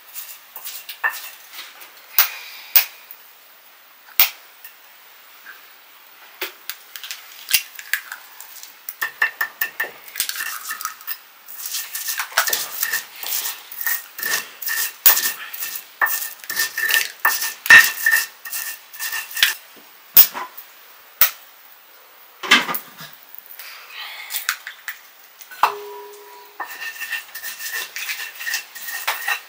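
Metal utensils clinking and scraping against metal cookware during cooking: many irregular sharp clinks, thickest in the middle stretch, with a faint metallic ring.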